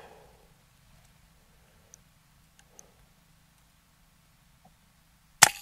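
A few faint clicks, then near the end a single sharp crack from the moderated, regulated Brocock Ranger XR .22 PCP air rifle firing a pellet.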